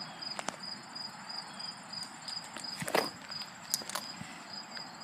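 Cricket chirping steadily, about three high chirps a second, with a few faint clicks and a brief noise about three seconds in.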